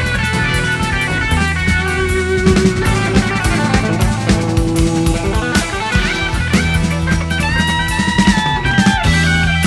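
Instrumental prog-rock passage: guitar lines over bass and a drum kit, with some notes sliding upward about six seconds in.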